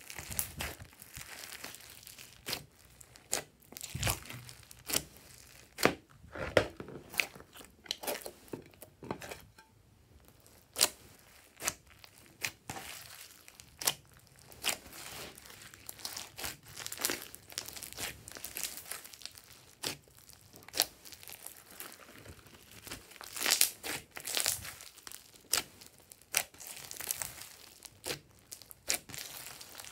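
Hands squeezing, kneading and stretching glossy slime mixed with foam beads: irregular sticky pops, clicks and crackles as it is pressed and pulled apart, with a dense run of pops a little past the middle.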